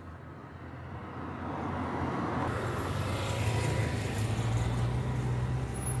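Engine of a road vehicle going by, a low steady rumble that grows louder from about two seconds in.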